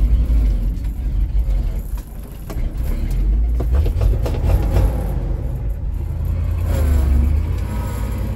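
1977 Ford F600 grain truck's engine running steadily, heard from inside the cab as a low-pitched drone, still warming up after a cold start. A few clicks and rattles come in around the middle.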